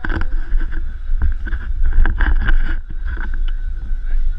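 Wind buffeting the microphone of a camera high on an exposed platform, a steady low rumble, with scattered knocks and clicks from handling around the camera.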